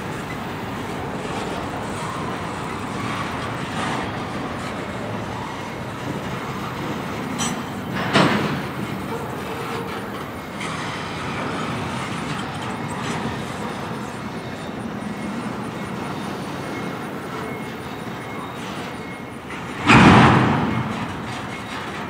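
Double-stack intermodal freight train rolling past, a steady rumble of steel wheels on rail from the well cars. Two sudden loud thuds break through it, one about 8 seconds in and a louder one near the end, each dying away over about a second.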